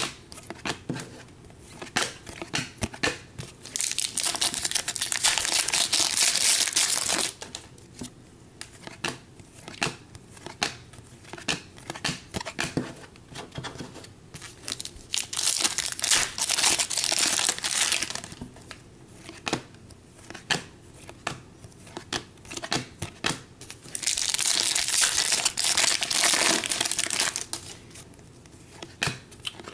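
Foil trading-card pack wrappers crinkling and tearing in three stretches of about three seconds each, with many small clicks and snaps of stiff cards being flipped and handled between them.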